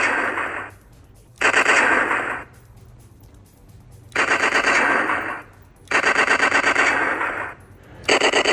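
Laserwar laser tag gun's electronic automatic-fire sound effect from its speaker: about four bursts of rapid pulsed shots, each lasting a second or so and fading out, with short pauses between.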